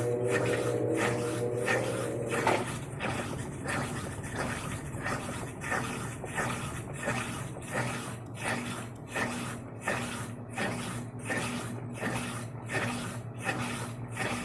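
Electrolux Essencial Care LES13 washing machine washing, its drum sloshing water in regular swishes about one and a half a second over a steady motor hum.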